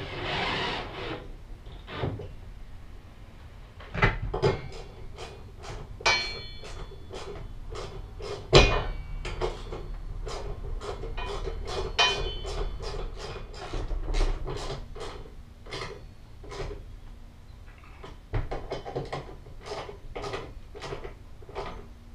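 Knocks, taps and metallic clinks of a metal helmet-holder bracket and its mounting hardware being fitted to an enclosed trailer's wall. There is a short noisy burst near the start, and a few of the louder knocks ring on.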